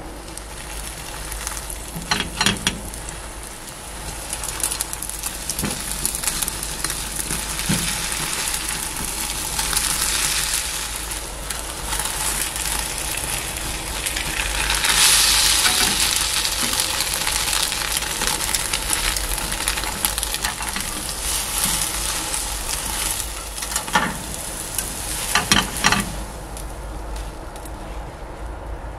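Beaten egg for a Korean rolled omelette (gyeran-mari) sizzling in a nonstick frying pan as it is rolled over with spatulas. The sizzle swells around the middle, and a few sharp clicks of the spatulas against the pan come a couple of seconds in and again near the end.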